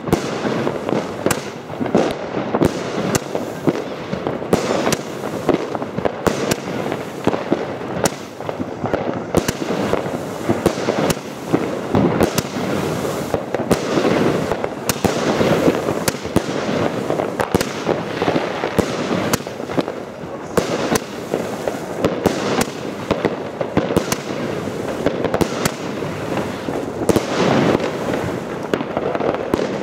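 Royal Fireworks 'Passion Flower' consumer fireworks cake firing: a continuous run of shots launching and bursting in the air, with frequent sharp cracks.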